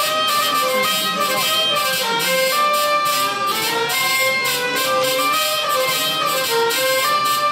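Hurdy-gurdy and violin playing a tune together, the hurdy-gurdy's steady drone held beneath the moving melody.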